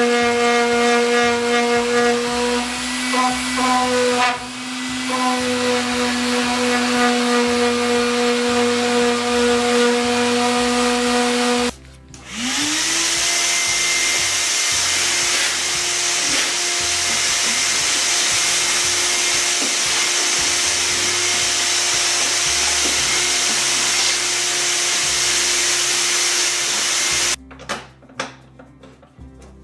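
A handheld electric power tool is sanding, its motor running steadily with a gritty rasp. It stops about twelve seconds in, then spins back up to a slightly higher pitch and runs until it cuts off near the end, followed by a few light clicks.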